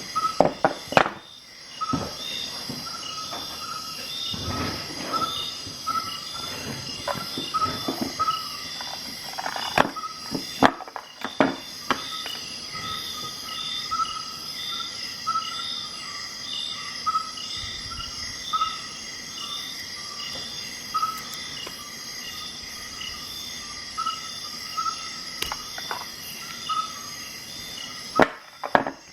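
Scattered sharp clicks from a multi-tool being handled, its tools snapping open and shut, over a steady background of insects chirping in a regular pattern.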